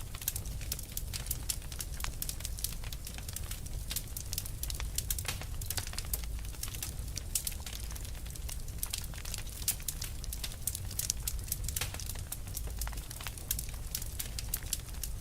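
Wood fire burning, with dense, irregular crackles and pops over a steady low rumble of the flames.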